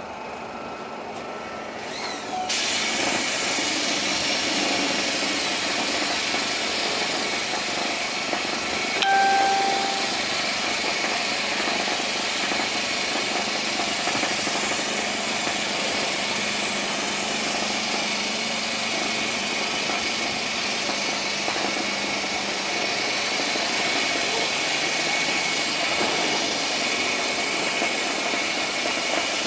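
A paint and putty sprayer machine switches on about two and a half seconds in and runs steadily with a dense hissing noise, with a brief louder surge about nine seconds in.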